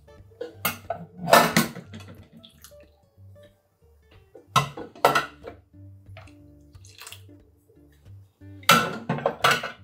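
Food-preparation noise: a spatula stirring wet kimchi seasoning in a plastic mixing bowl and plastic measuring cups being handled, in three bursts (about a second in, around five seconds, and near the end) over quiet acoustic guitar music.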